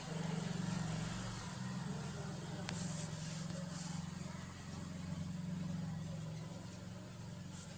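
A steady low mechanical hum throughout, with a few faint brief scratches, likely a ballpoint pen on notebook paper, about three to four seconds in.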